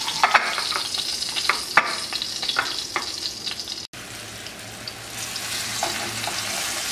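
Floured lamb shanks frying in hot oil in a pan: a steady sizzle with sharp crackles and pops in the first half. Just before four seconds in it cuts off abruptly and resumes as a quieter, even sizzle.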